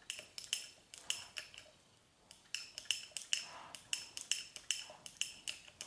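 Irregular light clicks and taps with a brief metallic ring, from small plastic fork parts and a grease tube knocking against the steel shafts of an RST Gila T5 suspension fork as grease is worked into the parts. The taps come in a run, pause briefly about a second and a half in, then resume.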